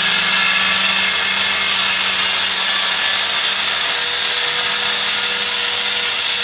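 An electric power tool running steadily and loudly at full speed: an even whine over a hiss.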